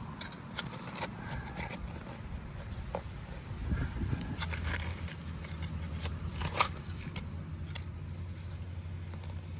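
Hand digging in sandy soil around tree roots: scraping with scattered sharp clicks and knocks from the tool, one sharper click about two-thirds of the way through.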